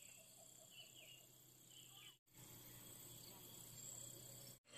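Near silence: faint outdoor ambience with a thin, steady high insect drone and a few faint chirps in the first second or so. The sound cuts out completely twice, briefly.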